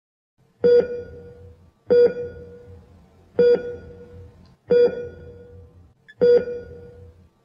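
Heart-monitor beep sound effect: five evenly spaced beeps, about one every 1.4 seconds, each a ringing tone that fades away over about a second.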